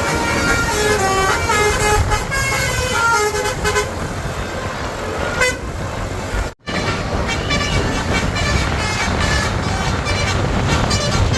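Basuri multi-tone 'telolet' bus horn playing a quick melody of short stepped notes over a low rumble of engine and road noise, breaking off for a moment about six and a half seconds in before the tones return.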